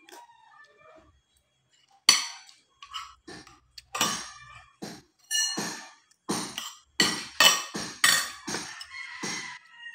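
Metal spoon and fork clinking and scraping against a ceramic plate during a meal: a quiet first two seconds, then a run of sharp, irregular clinks with a short ring, a few each second.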